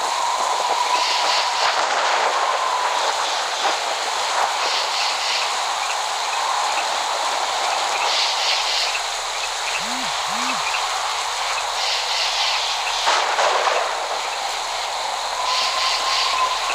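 Steady rain hiss. A faint wavering tone drifts in near the start and again near the end, and two short low calls come about ten seconds in.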